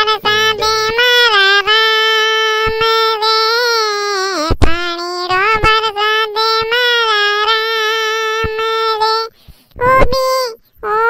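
A high-pitched cartoon voice singing a song in long, drawn-out notes, breaking off briefly about nine seconds in and then going on.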